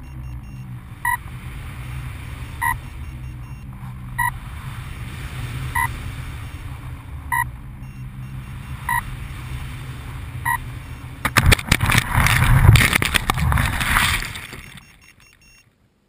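Motor of an unpowered EPP FPV plane giving a short beep about every second and a half, the speed controller's signal-loss warning after the radio link dropped, over steady wind rush on the onboard camera. Near the end the plane lands in tall grass and weeds with a few seconds of loud rustling and scraping, then goes nearly silent.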